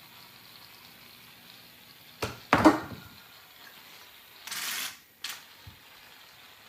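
Aerosol can of shaving cream hissing for about half a second as foam is sprayed out, after two sharp knocks a couple of seconds earlier and followed by a click.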